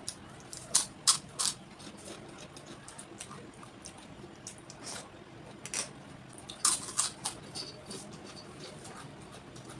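Close-up eating sounds: sharp mouth clicks and wet chewing or crunching noises from someone eating a meal of rice, rajma, roti, papad and cucumber. They come in two short clusters, about a second in and again around six to seven seconds.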